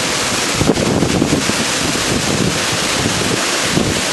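Steady rush of a fast-flowing river close by.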